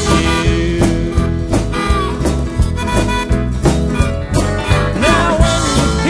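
Country-style song in an instrumental stretch between sung lines: drums keep a steady beat under bass and guitar, while a lead instrument plays held notes, some of them bending in pitch about five seconds in.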